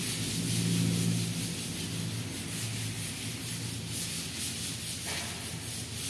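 Hand sanding of a painted counter top: a gloved hand rubbing back and forth in repeated strokes, giving a gritty scratching hiss.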